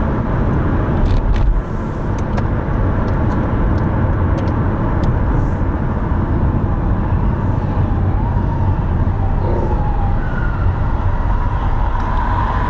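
Steady low rumble of a car driving, with a few sharp clicks between one and two seconds in.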